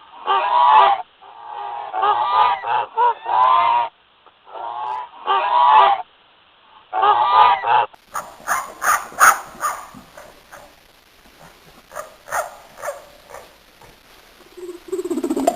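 Geese honking, a series of loud repeated calls in several clusters. About halfway through, a different recording takes over: quieter, irregular sharp clicks and taps.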